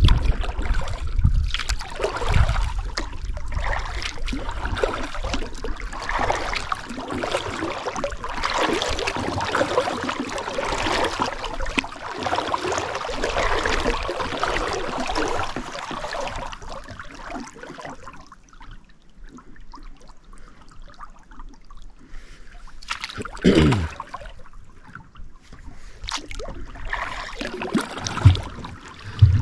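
Kayak paddling: water splashing and dripping from the paddle blades with each stroke. It quiets about two-thirds of the way through, and a few sharp knocks follow near the end.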